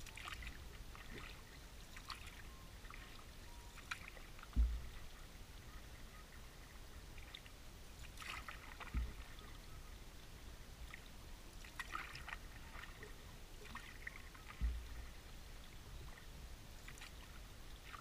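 Canoe paddling: a paddle dipping and pulling through calm river water, with splashes and drips every few seconds. Three short, deep thuds, the loudest sounds, come at about four to five seconds apart.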